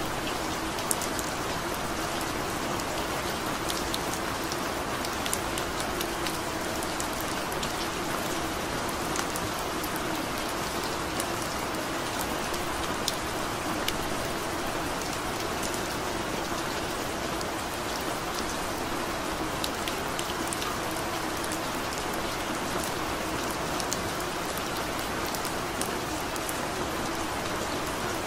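Steady rain, a constant hiss with scattered sharp drop ticks.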